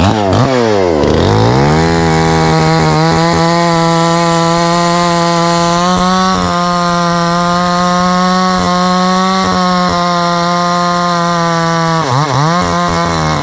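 Petrol chainsaw engine, very loud: it dips, then revs up to full throttle about a second and a half in and holds a steady high whine while cutting through a tree trunk. The revs waver and drop near the end.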